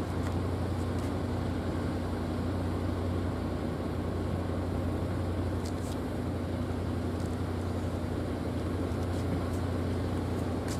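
An engine running steadily nearby, a low even hum that holds level throughout.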